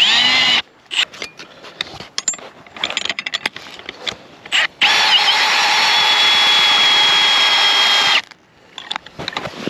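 Milwaukee Fuel cordless drill driving an ice-anchor screw into the ice. A brief spin winds up and down, then comes a run of short clicks and knocks. About five seconds in, the drill runs steadily under load for about three seconds and stops sharply.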